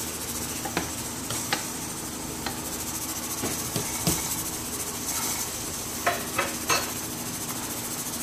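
Wooden spatula knocking and scraping against the side of a nonstick pot while cabbage, carrots and chicken are stirred. There are about ten sharp knocks, three close together about six seconds in, over a steady high hiss.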